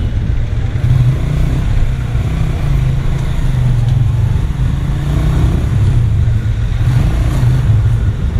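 Motorcycle riding through slow city traffic, recorded from the bike itself: the engine runs with a steady low rumble.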